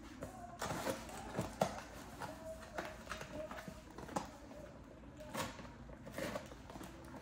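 Cardboard boxes and packaging being handled while door hardware is unpacked: rustling with scattered light knocks and clicks, a few sharper ones spread through.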